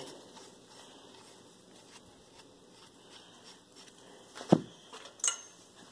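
Quiet handling of a cast-iron brake caliper, with one knock about four and a half seconds in and a lighter click just after.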